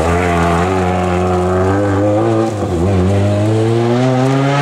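Rally car engine accelerating hard at high revs, its pitch climbing. About two-thirds of the way through there is a quick dip for an upshift, and then it climbs again.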